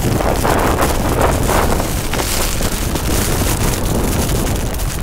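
Strong cyclone wind gusting and buffeting the microphone, a continuous rush of noise with a heavy low rumble.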